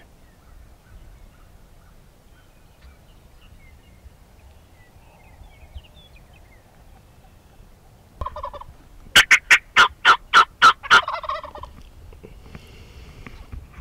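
A Merriam's wild turkey tom gobbles once, about nine seconds in: a loud, fast rattling call of about eight quick pulses, over in under two seconds.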